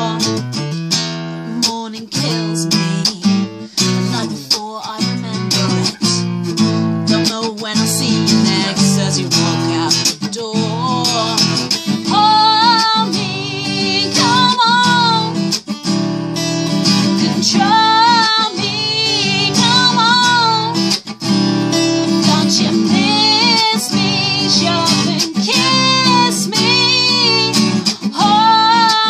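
Acoustic guitar strummed steadily with a woman singing along. Her voice stands out with a wavering, held tone from about twelve seconds in.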